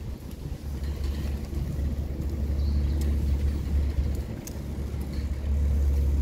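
Wind buffeting and rolling road noise on a handlebar-mounted camera as a city bicycle rides along a paved lane: a steady low rumble that eases briefly about four seconds in, with a couple of faint clicks.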